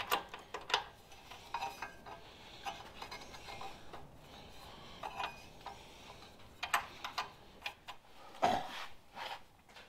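Metal hand tools, a socket and a flathead screwdriver, clinking and scraping against the tractor's engine while a heater-hose fitting is worked loose of an electrical connector and tightened. Irregular light clicks and taps, with a louder knock near the end.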